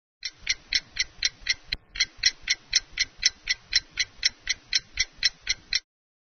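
Clock ticking fast and evenly, about four ticks a second, cutting off suddenly near the end.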